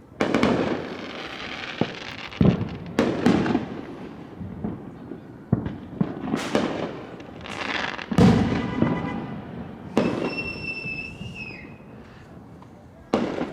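Fireworks going off in a series of about ten loud bangs, each followed by crackling as it dies away. Around ten seconds in, a high steady whistle holds for over a second and dips at its end.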